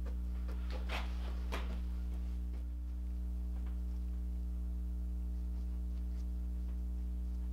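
Brush strokes wetting out fiberglass cloth with epoxy, a couple of short scratchy strokes about a second in and fainter dabs after, over a steady low hum.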